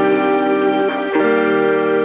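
Slow relaxation music of long held tones, moving to a new chord about a second in.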